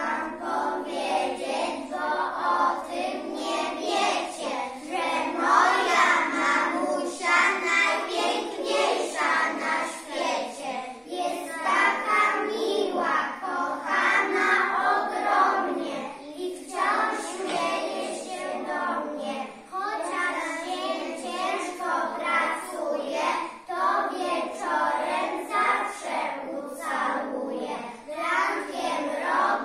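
A group of young children singing a song together in unison, phrase after phrase with short breaths between.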